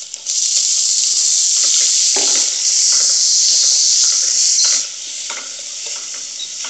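Shredded cabbage sizzling as it hits hot oil and is stirred with a wooden spatula, scraping the pot. The sizzle is loud at first and drops to a lower hiss almost five seconds in.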